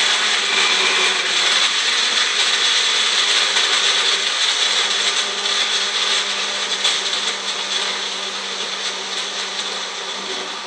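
Magic Bullet blender running loud and steady, blending a shake with ice cubes and frozen banana. It eases off a little over the second half and cuts off at the end.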